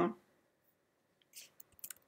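A few faint keystrokes on a computer keyboard, short separate clicks starting about a second and a half in, after a second of near quiet.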